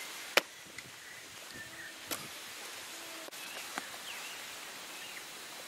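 Quiet outdoor ambience with one sharp knock about half a second in and a fainter click about two seconds in, then a few short bird chirps near the end.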